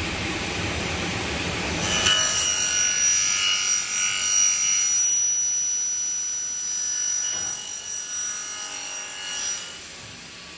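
Single-head circular saw for aluminium profile running, then cutting through an aluminium profile about two seconds in. The cut is a high, ringing metallic screech that fades over the next several seconds and stops shortly before the end.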